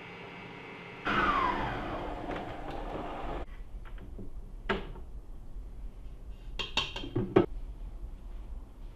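Electric stand mixer beating eggs and sugar in a steel bowl: its motor starts loud about a second in with a whine that drops in pitch, then cuts off suddenly about three and a half seconds in. Metal clinks and knocks follow as the whisk head is raised and the steel bowl is handled.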